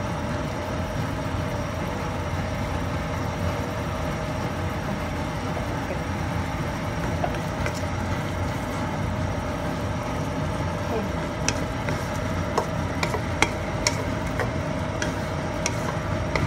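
Wooden spatula stirring a wok of tempe and anchovy sambal that is simmering in its sauce, with sharp taps against the pan, most of them in the second half. A steady mechanical hum runs underneath.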